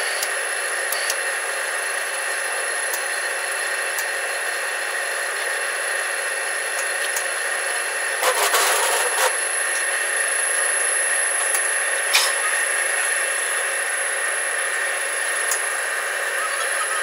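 Screw flight cold rolling machine running steadily with a constant high whine, steel strip rubbing as the spiral flight forms, with a few light clicks. A louder rush of scraping noise about eight seconds in lasts about a second, and a sharp click comes about twelve seconds in.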